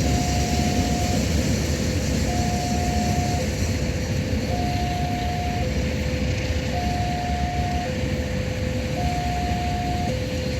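Railway level-crossing warning alarm sounding, two tones alternating high and low, each held about a second, over a steady hiss of rain.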